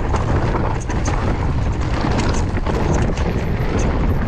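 Wind buffeting the microphone and the rumble of a mountain bike rolling fast down a rough trail, with scattered sharp clicks and knocks from stones and the bike.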